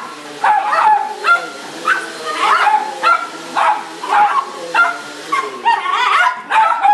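Small dogs yapping repeatedly at a running upright vacuum cleaner, about two barks a second. The vacuum's motor hiss runs under the barks and stops a little past six seconds in.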